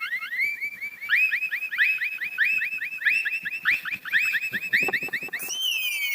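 Electronic siren sound: a quick rising chirp repeated about five times a second, which near the end rises once more and slides down into one long falling tone.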